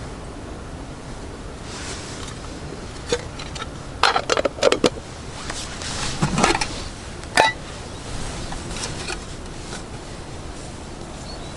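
Camp cookware or gear being handled: a cluster of light clinks and knocks between about three and seven and a half seconds in, the sharpest one near the end of the cluster, over a steady background hiss.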